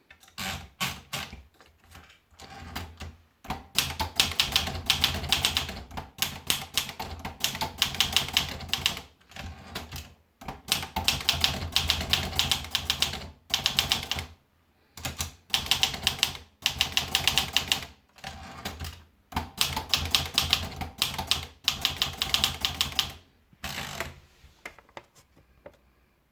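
PMC Elite 44 typewriter being typed on: runs of rapid key strikes with short pauses between them. The typing stops about two seconds before the end.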